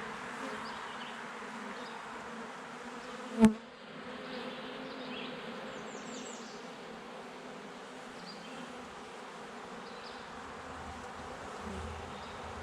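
Honeybees from an opened nuc buzzing steadily in a dense hum, with one sharp knock about three and a half seconds in.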